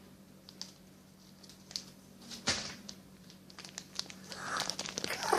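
Plastic packaging crinkling and rustling as it is handled and opened, in scattered short bursts, with one louder sharp crinkle about halfway through and more rustling near the end.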